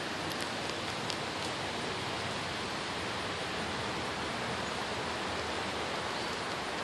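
Steady, even rushing noise, like moving water or wind, with a few faint clicks in the first second and a half.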